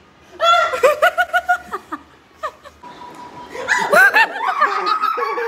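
People laughing and squealing in short, high-pitched bursts, twice. A steady beep-like tone starts about three seconds in and lasts more than a second under the second round of laughter.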